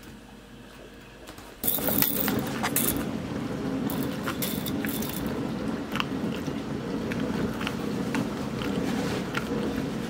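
Bosch Ascenta dishwasher starting its sanitize cycle: a little under two seconds in, water suddenly starts rushing through it and runs on steadily, with a few light clicks over the top.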